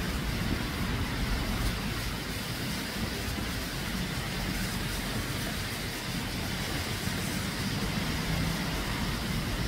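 Steady outdoor background noise: an even low rumble with hiss and no distinct events.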